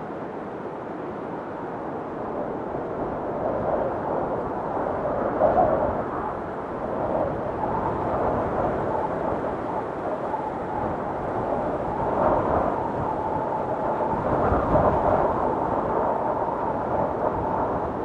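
Storm wind blowing hard in gusts that swell and ease, with a thin whistling tone joining in the second half.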